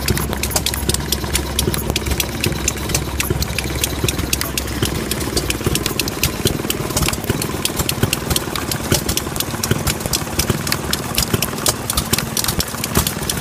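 Scale-model Economy hit-and-miss gas engine running, its flywheels turning, with a rapid, uneven series of sharp clicks and pops over a low running hum.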